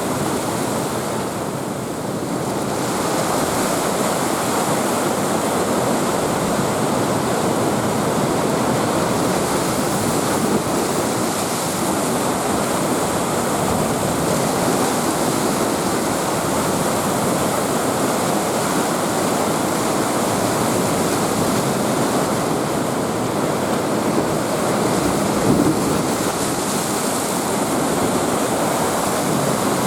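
Heavy, rough surf churned up by a typhoon, waves breaking and washing without a break, with some wind on the microphone.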